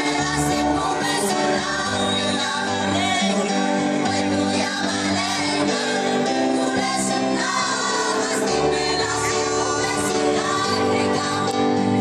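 Mixed amateur choir singing a song with electric keyboard accompaniment.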